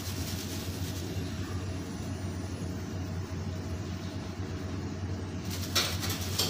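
Steady low kitchen hum and rumble while fried potato fries drain in a wire mesh skimmer over a wok of oil, with two brief metallic clinks near the end as the skimmer meets the wok.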